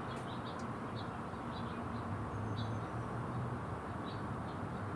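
Small birds chirping in short, scattered calls, about a dozen, over a steady low background hum.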